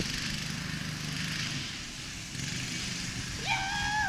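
Small motorised toy monster truck running steadily with a low hum and hiss. Near the end a high-pitched voice calls out once, held for about half a second.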